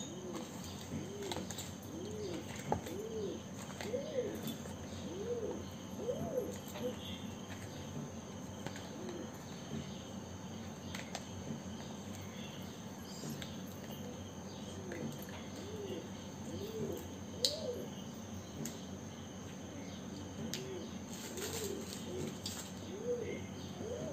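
A pigeon cooing: a series of repeated rising-and-falling coos through the first seven seconds or so, then again from about fifteen seconds on, with a few faint clicks in between.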